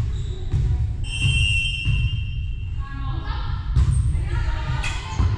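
Volleyball rally on a hardwood gym court: sharp ball contacts and thudding footsteps, with short shouts from players. A shrill tone lasting about a second comes near the start.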